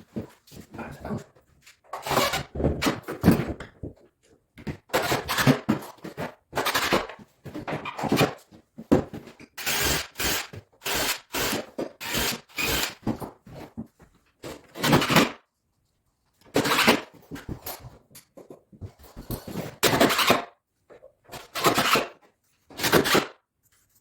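Hand tools working wood: a series of short scraping strokes, each under a second long, with pauses between, as a door is fitted.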